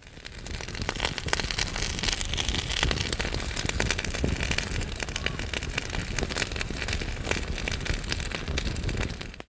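Wood fire crackling in a fireplace: dense, irregular pops and snaps over a steady low rumble of flame, cutting off abruptly at the end.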